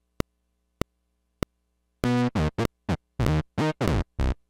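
Three sharp metronome clicks, about 0.6 s apart, counting in a recording, then from about two seconds in a software synth lead playing a staccato sequence of short notes, triggered by an Arturia BeatStep step sequencer synced to Maschine's tempo.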